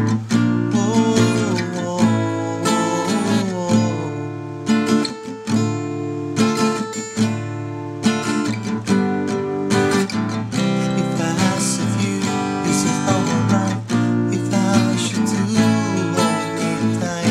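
Acoustic guitar strummed in chords, with a strong, regular stroke rhythm all through.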